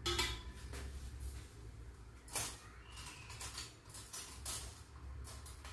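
Kitchen utensils clinking and knocking, a string of short sharp clacks as a spoon is set down and chopsticks are taken from a utensil holder, the loudest about halfway through, over a low steady hum.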